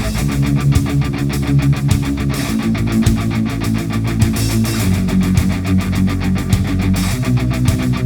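Background music: heavy rock with distorted electric guitar and a fast, driving beat.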